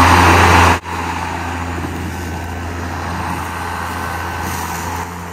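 Hart battery-powered electric lawn mower running, a steady motor hum with a whir of the blade. Less than a second in the sound drops suddenly to a quieter level and then runs on steadily.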